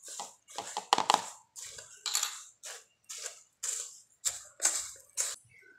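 A steel spoon stirring bhel puri mix of dry puffed rice in a stainless steel bowl: a crisp rustling scrape repeated about twice a second, stopping near the end.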